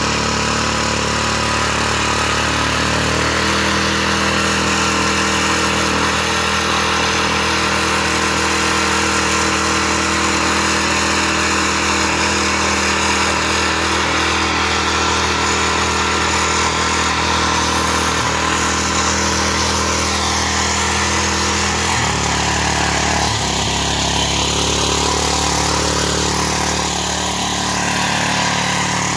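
Mitsubishi motor hoe (small rotary tiller) engine running steadily while the tiller churns through garden soil. Its engine note shifts a few seconds in and again about three-quarters of the way through, as the load on the tines changes.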